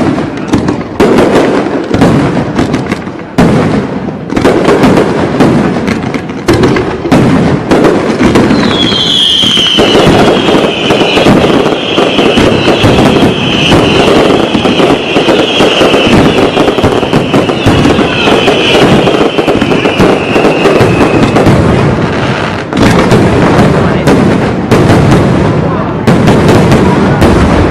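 Fireworks going off in a dense, continuous barrage of bangs. A high, wavering whistle sets in about a third of the way through and fades out past the middle.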